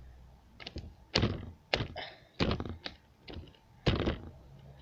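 A hand slapping a lump of slime again and again, a series of sharp slaps at uneven intervals.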